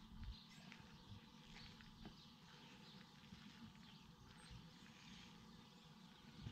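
Near silence: faint outdoor ambience with a low, uneven rumble and a few faint clicks.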